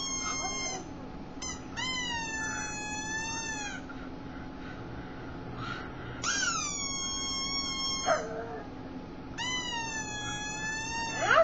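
A pug whining in long, high squeals, each about two seconds and fairly steady in pitch: the first ends just after the start and three more follow. One drops low at its end, and the last ends in a sharp upward yelp.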